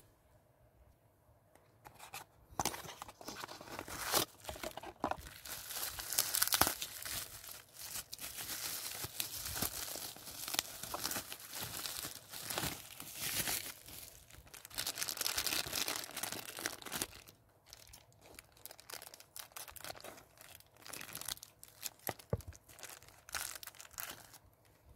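Clear plastic wrapping crinkling and tearing as it is pulled open by hand around a small figure part. Dense crackling starts about two seconds in and thins to scattered crackles about two-thirds of the way through.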